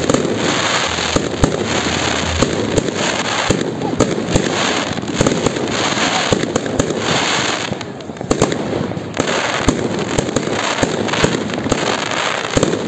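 Fireworks display: a steady barrage of sharp bangs from shells bursting overhead amid dense crackling, easing briefly about eight seconds in before picking up again.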